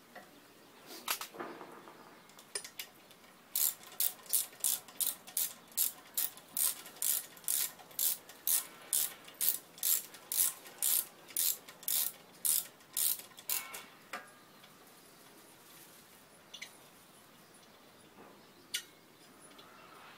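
Socket ratchet wrench clicking in fast, regular back-strokes, about two to three clicks a second for some ten seconds, as it turns out a cylinder head bolt on a small engine pump. A few scraping knocks come before the run, and single clicks follow it near the end.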